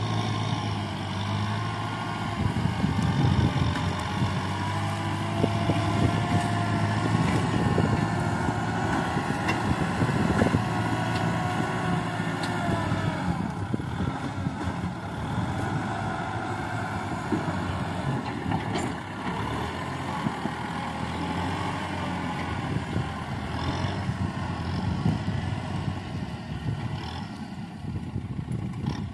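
Kubota M6040 tractor's four-cylinder diesel engine running steadily under load as it works the field, with a wavering whine above the engine note.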